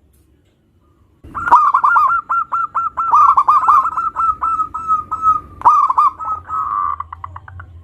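Zebra dove (perkutut) cooing. After about a second of quiet, it gives a long, rapid series of short hooked coos, about five a second, then starts a second phrase that ends in a short rolling burr near the end.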